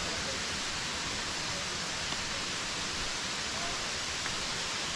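Steady rushing of a nearby waterfall and its stream, an even hiss with no breaks.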